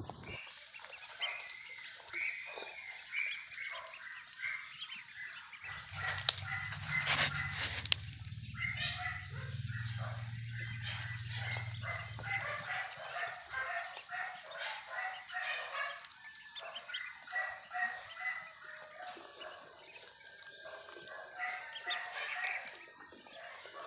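A brood of ducklings peeping continuously in a crowd as they feed. From about six to thirteen seconds a low hum runs underneath, with a few loud knocks around seven to eight seconds in.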